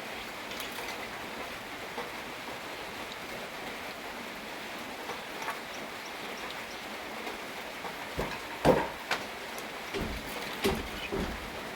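Steady rain falling. About eight seconds in comes a short run of sharp wooden knocks, typical of a handloom's beater and shuttle being worked.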